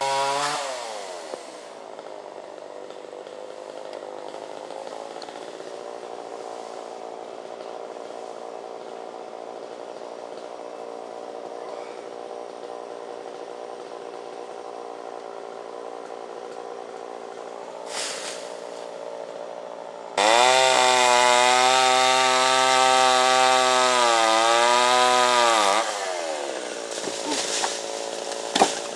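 Gas-engine chainsaw idling steadily, then revved hard for about six seconds with a brief dip in pitch as it loads in the cut, and dropping back to idle.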